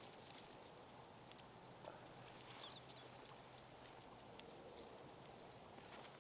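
Near silence: faint outdoor ambience with a few faint ticks and a brief high chirp about two and a half seconds in.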